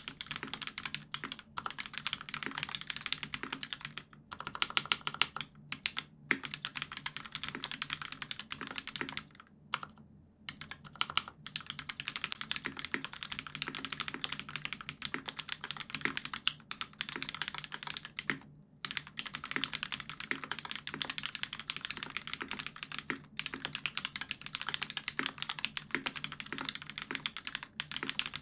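Fast, continuous typing on a custom mechanical keyboard with lubed Hyperglide Cherry MX Black linear switches on an aluminium plate, under GMK keycaps, with brief pauses now and then.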